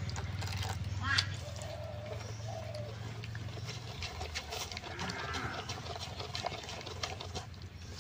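A hand mixing thick, wet ground lentil-and-rice batter in a stainless steel bowl, just after water has been poured in. It makes many short wet slaps and clicks.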